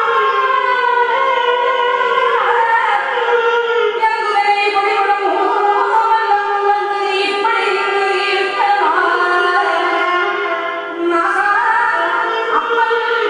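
A woman singing a Carnatic devotional song in long held notes that slide and bend between pitches, with a violin accompanying her.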